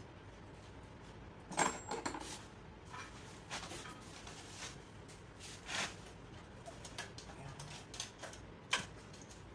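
Scattered metallic clicks and knocks of hand tools and loosened parts as a small gasoline generator engine is taken apart, the loudest knock about a second and a half in and others near the middle and end.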